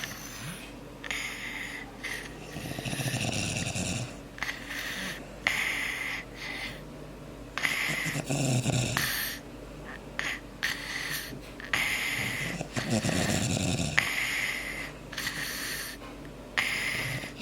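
A sleeping man and toddler snoring, both sick. Deep, rattling snores come about every four to five seconds, with hissy breaths carrying a faint whistle in between.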